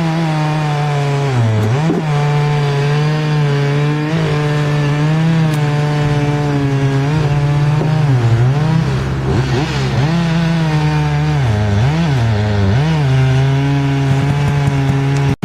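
Chainsaw running at high revs, its pitch dipping again and again as it bogs into the wood and recovering between cuts. It cuts off suddenly at the very end.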